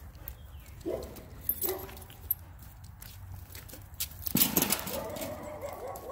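Two dogs playing, making short vocal sounds, with a longer wavering run of them about four seconds in.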